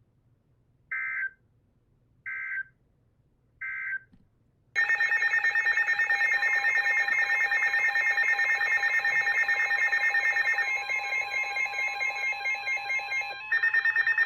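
Emergency Alert System header: three short data bursts of warbling digital tones, then a loud steady two-tone attention signal that starts about five seconds in and carries on through the rest, shifting in sound a little near the end.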